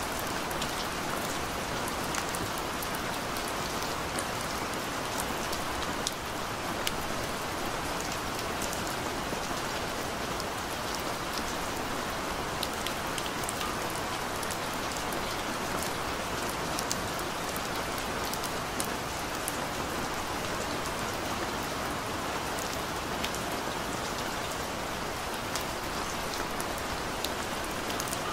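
Steady gentle rain falling: an even hiss with many small drop ticks scattered through it.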